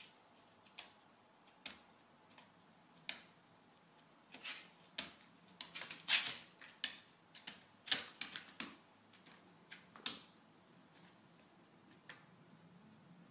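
Small dog's claws clicking on a hardwood floor as she steps and shuffles backward, in irregular sharp ticks that come thickest in the middle few seconds.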